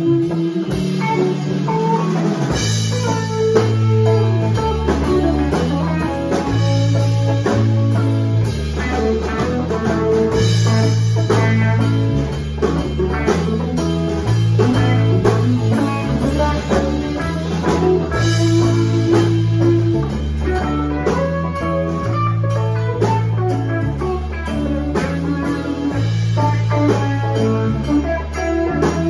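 A band playing live with electric guitars, a bass guitar and a drum kit. The bass notes change about every two seconds under a steady drum beat.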